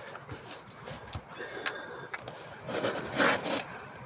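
Scraping and rubbing with a few light clicks: hand work to pull the old thermostat's rubber seal out of its housing, with the loudest scrape about three seconds in.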